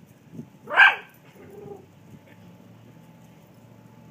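Dachshund barking once, about a second in, at a crawfish it is confronting; the rest is faint.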